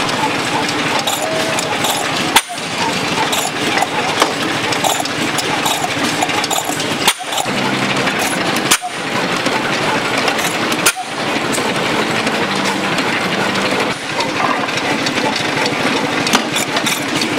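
Hit-and-miss gas engine running and driving an antique well drilling rig through belts, pulleys and chain, a steady dense mechanical clatter. The sound drops out briefly a few times.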